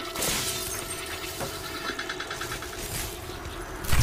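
Film sound effects of electrical discharge: a noisy crackle with a rapid stuttering buzz of zaps in the middle, then a sudden loud burst with a low boom near the end as sparks spray out.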